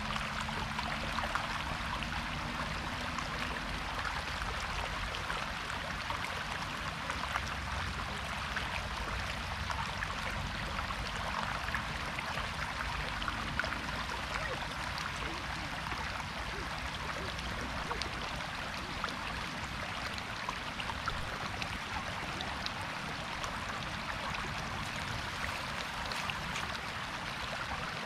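Shallow floodwater rushing and splashing steadily, with a continuous even rush of water.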